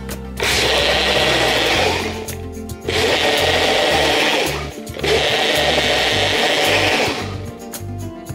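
Countertop blender running in three short bursts of about two seconds each, blending plant pieces and liquid into a frothy mix.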